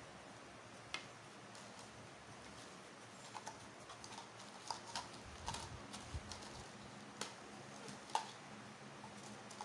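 Light plastic clicks and taps at irregular intervals, as toy cake slices are set against each other and fitted onto a plastic cake tray.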